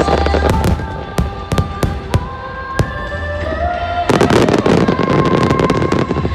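Aerial firework shells bursting: a string of separate sharp bangs, then from about four seconds in a dense crackling as many shells burst at once.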